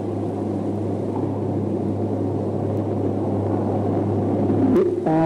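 Steady low hum and dense rushing background noise of an old sermon recording, unchanging through the pause. A man's voice sounds briefly near the end.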